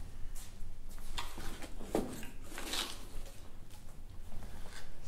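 Cardboard packaging being handled: a few short scrapes and knocks of a cardboard box and its flaps, the loudest two near the middle.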